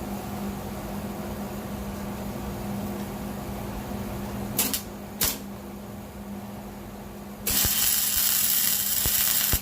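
Soapy water being sprayed onto exhaust joints: two short squirts about half a second apart, then a louder spray of about two seconds that stops abruptly. A steady low hum runs underneath.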